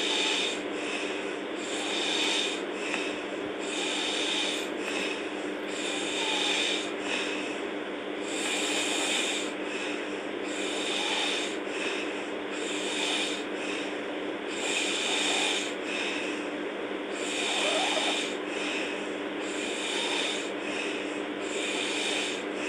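A girl snoring hard in deep sleep: rasping snores that repeat in a regular rhythm, roughly once a second, over a steady low hum.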